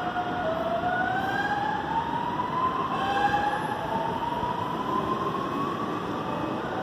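CPTM electric commuter train accelerating away from the platform, its traction motors giving a whine that rises in pitch in two steps over steady running noise.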